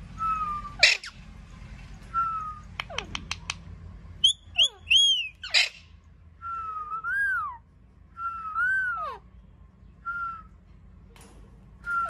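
Indian ringneck parrots calling: a string of whistled notes that rise and fall, mixed with short, sharp screeches that drop in pitch. The loudest screeches come about a second in and again a little past the middle.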